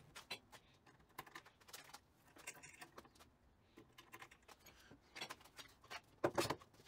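Faint, scattered clicks and light rattles of a small steel chain being hooked over screw heads on wooden sawbuck legs, with a short cluster of louder knocks about six seconds in.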